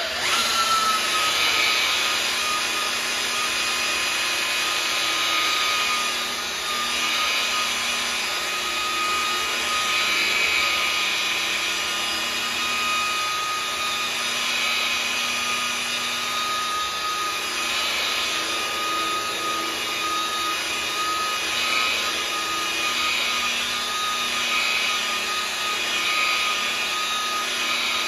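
DeWalt rotary polisher with a foam pad running steadily while it buffs cutting compound into fresh paint on a panel. The motor gives an even whine, and the pad's rubbing noise rises and falls about every two seconds as it sweeps back and forth.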